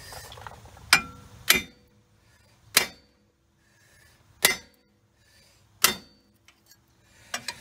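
Hammer blows on a 2010 Jeep Liberty's front wheel hub bearing, driving the tight bearing out: five hard metallic strikes a second or so apart, each ringing briefly, then a lighter knock near the end.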